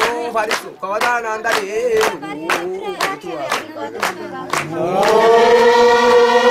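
A group of men chanting together, with hand claps keeping about two beats a second. Near the end the clapping stops and the voices hold one long note.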